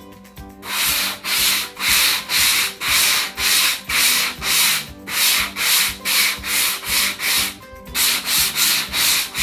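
Sanding block with 150–220 grit sandpaper rubbed back and forth over a painted fabric chair seat, about two strokes a second, starting about half a second in. After a short pause near the end the strokes resume a little quicker. The dried chalk-type paint on the upholstery is being lightly sanded smooth.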